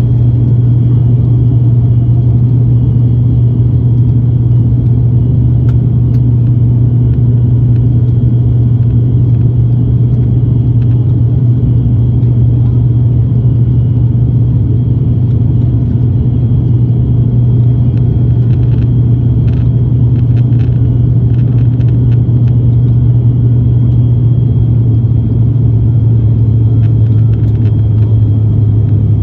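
ATR 72 turboprop at takeoff power, heard from inside the cabin: a loud, steady low propeller drone whose pitch drops slightly near the end.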